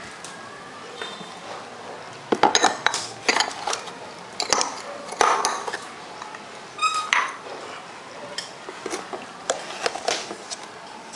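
Small metal balls, magnets and a bowl being handled on a wooden table: a run of clicks, knocks and clatter, with a short ringing ping about seven seconds in.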